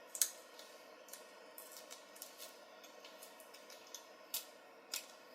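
Irregular sharp clicks and crinkles of aluminum foil tape being peeled up and folded back off an LCD panel's metal enclosure, the loudest snap just after the start, over a faint steady hum.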